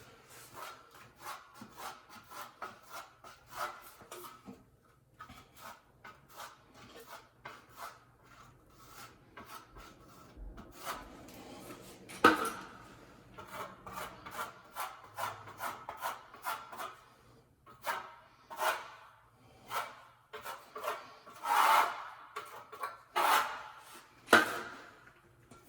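Hand rubbing strokes on a vinyl sheet floor repair, short and irregular, with a couple of sharper knocks, one near the middle and one near the end.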